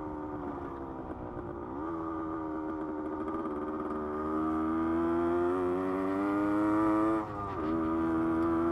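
1972 Yamaha LT2 100's single-cylinder two-stroke engine running under way on a dirt road. Its pitch dips briefly, then rises steadily for a few seconds and drops sharply a little after seven seconds before settling again.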